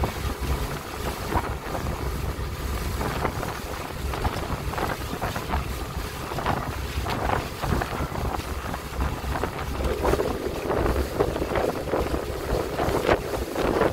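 Harbour ferry under way on open water: wind buffets the microphone in uneven gusts over the rush of choppy water along the hull.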